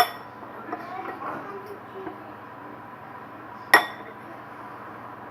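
A mixing utensil clinking against a bowl: a sharp ringing clink at the start and another a little under four seconds in, with faint scraping and handling noises between.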